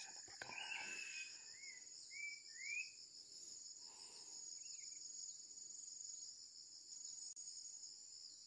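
Faint, steady, high-pitched insect trill with a fine pulsing, and a few short rising chirps in the first three seconds.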